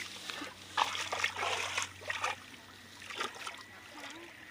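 Splashing and swishing in shallow water among grass as a fish is grabbed by hand. It comes in quick, irregular bursts through the first couple of seconds and once more about three seconds in.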